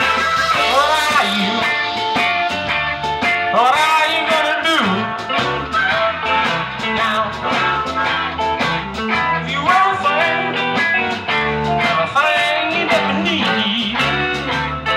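Live blues band playing, with electric guitar lead lines bending notes over bass and drums.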